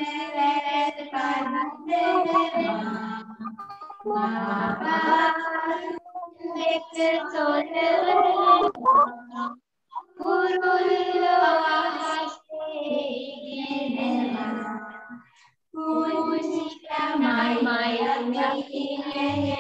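Singing with music, a children's song, in phrases of a few seconds with two short pauses.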